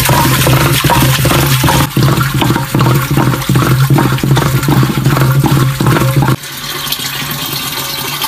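Wooden churning stick spun back and forth by a rope in a clay pot, sloshing the curd inside with a quick even rhythm of about three strokes a second, as butter is churned by hand. The churning stops abruptly about six seconds in, leaving a quieter steady background noise.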